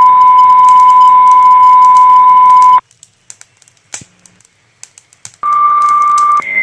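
Fire dispatch alert tones over the radio: a loud steady tone that cuts off about three seconds in, then near silence with faint clicks, then near the end a two-tone page, a short tone stepping up to a higher held tone.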